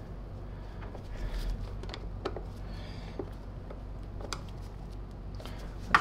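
A few faint, light plastic clicks and taps as the housing of a Wessel-Werk EBK340 power brush head is handled and fitted back together, over a steady low hum.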